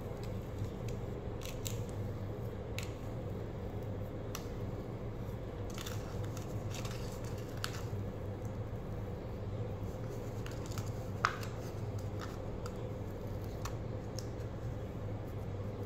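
Metal fork scraping and clicking against a small plastic cup as crumbly old slime is scooped out, in scattered short scrapes with one sharper click about eleven seconds in, over a steady low hum.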